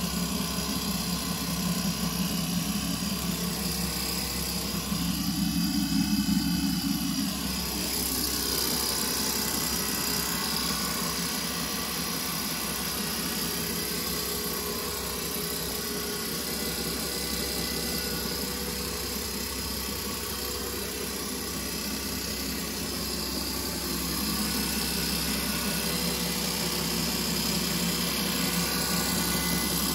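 Floating fish feed extruder and its electric drive motor running with a steady mechanical noise, a little louder for a couple of seconds about six seconds in.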